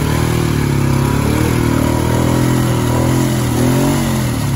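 ATV engine revving hard under load while driving through a deep mud hole. The pitch rises and falls twice over a steady low drone.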